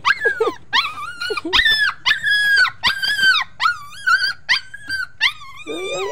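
Puppy whining and crying: a quick run of short, high-pitched, wavering whines, two or three a second.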